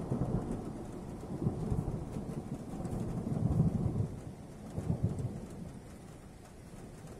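Distant thunder rolling over steady rain, the low rumble swelling a few times and dying away near the end.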